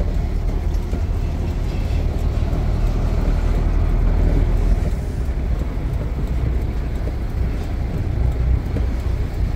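Container tractor truck's diesel engine running steadily under way, heard from inside the cab as a continuous low rumble mixed with road noise.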